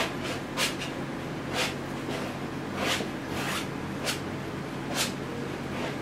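Oil paint being worked onto a stretched canvas by hand: short scratchy swishes of the tool across the canvas, roughly one a second, over a steady low hum.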